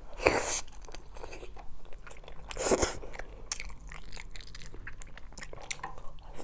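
Close-miked eating: two loud bites about two and a half seconds apart, with chewing and small mouth clicks in between.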